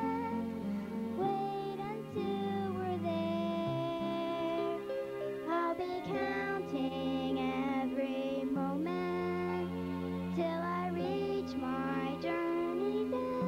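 A young girl singing a slow song solo into a microphone, with long held notes over instrumental accompaniment.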